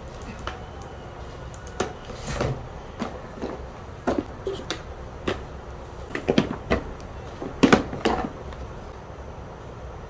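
Hard plastic toys knocking and clattering as they are handled and packed into a toy wagon: a string of irregular sharp knocks, loudest a little over three-quarters in, then stopping.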